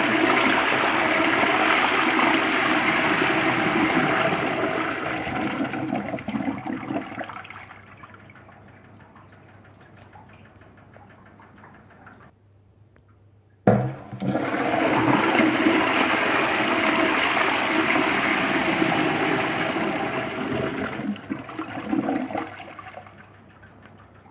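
A cistern toilet flushing twice. The first rush of water tails off into a quieter trickle about seven seconds in. After a short lull, a second flush starts abruptly about fourteen seconds in and tails off again near the end.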